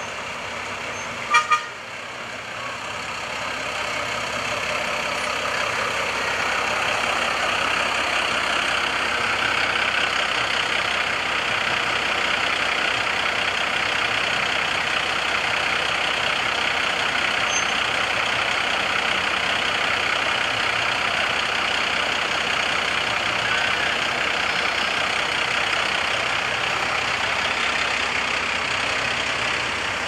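Two short horn toots about a second and a half in, then the steady running noise of parading military vehicles, a jeep and a six-wheel army cargo truck, driving slowly past, growing louder over the first several seconds and then holding steady.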